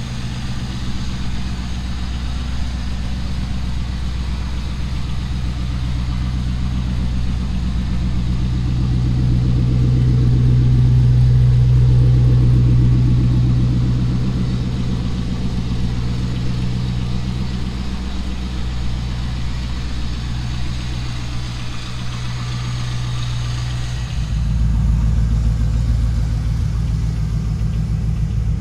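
A 2002 Pontiac Trans Am WS6's 5.7 L LS1 V8 idling steadily through a Hooker aftermarket exhaust. It swells for a few seconds near the middle as the tailpipes come close. Near the end it turns deeper and more muffled, heard from inside the cabin.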